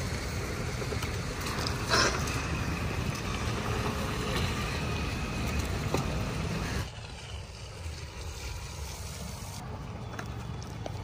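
Street noise: a steady low rumble like passing traffic, with a single sharp knock about two seconds in. The level drops suddenly about seven seconds in.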